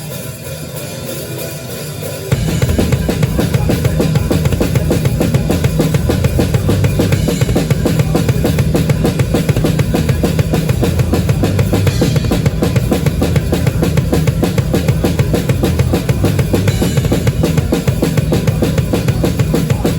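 Heavy metal drum kit played live, crashing in suddenly about two seconds in with fast, driving bass drum strokes, snare and cymbals under the band.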